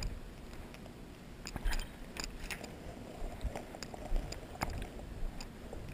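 Footsteps and the clicking and knocking of carried gear as an airsoft player walks with a rifle, with irregular sharp clicks and a few dull thumps.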